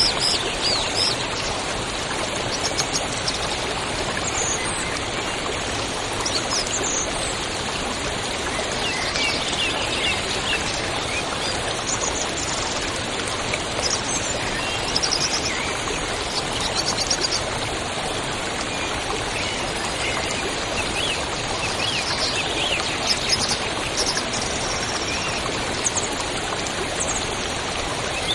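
A river running steadily, with many small birds chirping and trilling over it.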